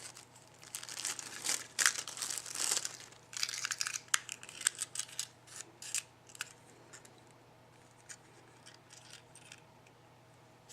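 Handling noise: crinkling packaging with scattered sharp clicks and taps, thinning out after about six seconds to near quiet with a faint low hum.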